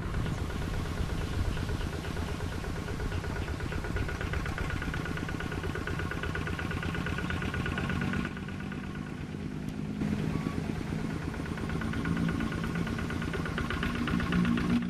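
Quick G3000 Zeva two-wheel hand tractor's single-cylinder diesel engine running steadily with a fast, even beat. The sound drops slightly a little past halfway and comes back up about two seconds later.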